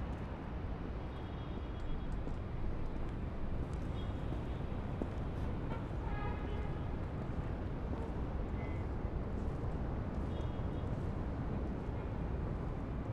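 Steady low rumble of distant city traffic, with a few faint short high tones over it.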